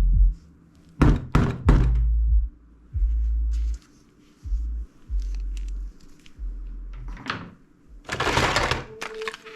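A series of deep thuds, each lasting about half a second to a second, with sharp clacks about a second in and again near the end, and a longer hissing burst shortly before the end.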